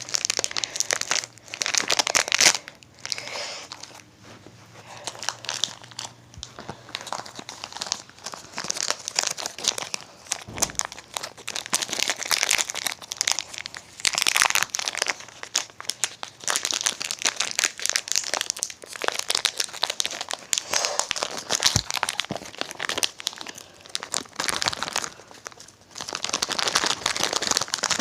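Plastic candy wrappers of Life Savers gummies crinkling and tearing as the small packets are opened by hand, a long run of irregular crackles.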